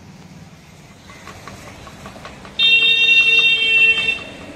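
A vehicle horn sounds once, a loud steady note lasting about a second and a half, over light rapid ticking, about five a second, from a lidded steel pot being shaken to mix cut fruit with masala.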